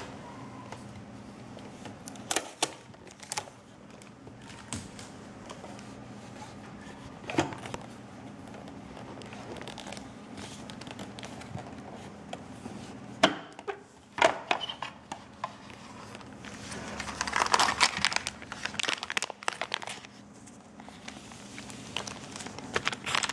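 A few scattered plastic clicks and knocks from handling a sewing machine's accessory compartment, then a clear plastic bag of sewing accessories crinkling for a couple of seconds, and again near the end.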